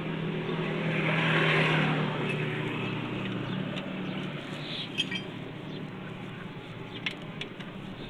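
Work under a car at the bolts of the underbody splash shield: a few sharp metallic clinks of bolts and tools against a steady low hum. A louder noisy swell comes about a second in.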